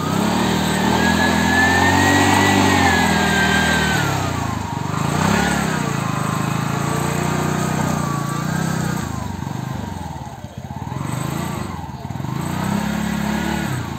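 TVS three-wheeler auto-rickshaw engine revving, its pitch rising and falling several times as it pulls away.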